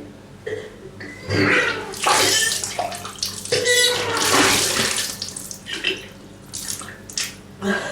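A woman retching and gagging in several heaving stretches over a few seconds, with a wet, splashing sound of liquid.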